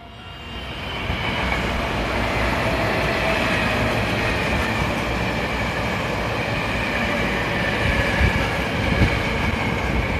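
Hankyu 1000 series electric train running past along a station platform: steady rolling noise that builds over the first second, with a thin high whine held through it and a couple of louder knocks near the end.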